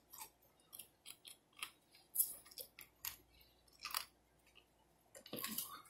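Close-miked chewing of a breaded fried chicken wing: irregular small crunches and mouth smacks, a few each second, with a longer, louder bout near the end.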